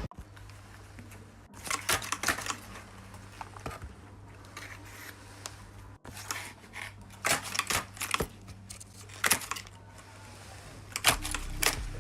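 Paper being handled: irregular bursts of crisp rustling and clicking, as of a folded paper dragon puppet being worked, over a steady low hum.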